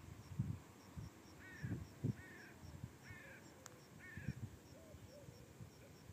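A bird calling four times in quick succession from about a second and a half in, short arched calls under a second apart, with a fainter lower call near the end. Behind it runs a faint, even high ticking, with scattered low thumps.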